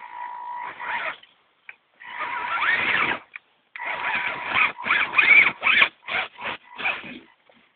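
Axial SCX10 Honcho RC crawler's 19-turn brushed electric motor and gearbox whining in short throttle bursts as it climbs: two longer pulls of about a second, then a run of quick stop-and-go blips, the pitch rising as the motor speeds up.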